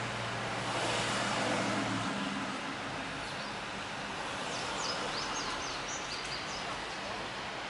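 Steady road and cabin noise from a car rolling slowly past parked vehicles, with a low hum that stops about two seconds in. A bird chirps several short, high notes about five seconds in.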